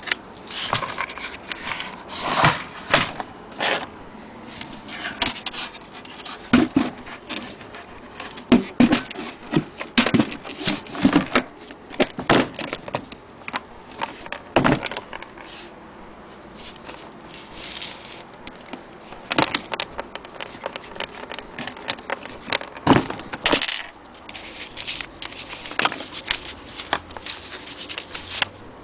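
Vintage Olympia typewriter being worked by hand: irregular clacks and clicks from its mechanism, sometimes several a second, broken by short pauses.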